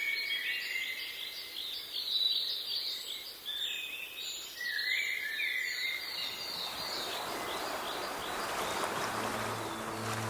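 Ambient nature recording: a dense chorus of short, rapidly repeated chirps, from birds or insects, fades into a steady rushing sound like waves or wind from about six seconds in. Near the end a low sustained music drone comes in.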